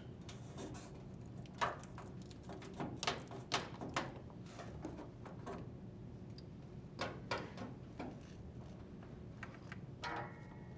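Scattered light clicks and knocks, about eight in all, of a washer power cord being fed through the cabinet and twisted to lock in place.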